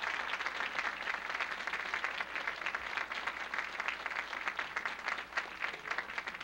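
A large audience applauding, many hands clapping together in a dense patter that thins a little near the end.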